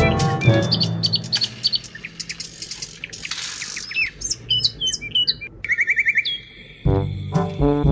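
Birds chirping: many short, sliding tweets and a quick trill. Background music fades out at the start and comes back in near the end.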